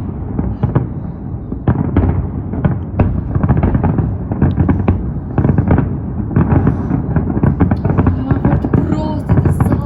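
Many fireworks going off at once: a dense, continuous barrage of bangs and crackling, several reports a second.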